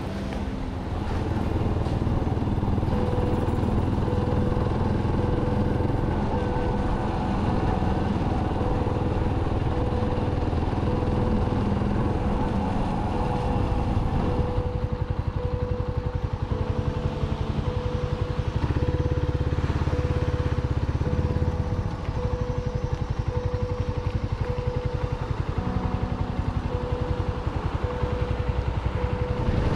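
Motorbike engine running while riding on a wet road, its note rising and falling with speed. A faint short beep repeats at an even pace throughout.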